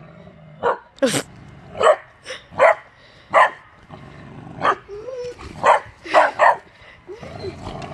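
A dog barking: about ten short, sharp barks with uneven gaps.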